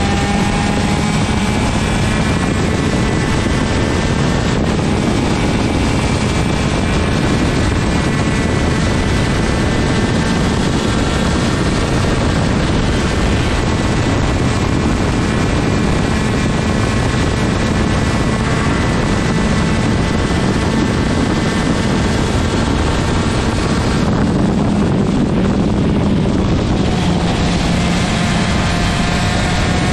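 125cc TM two-stroke superkart engine running hard at high revs, its pitch climbing steadily along the straights. About three-quarters of the way through the pitch drops off and then climbs again near the end.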